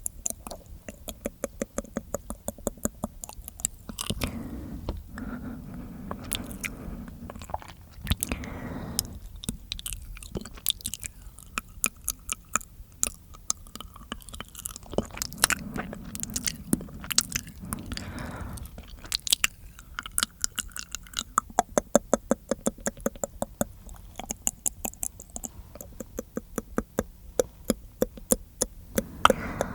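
Close-miked wet mouth sounds: rapid runs of tongue and lip clicks and smacks, with stretches of softer, squelchy chewing-like noise.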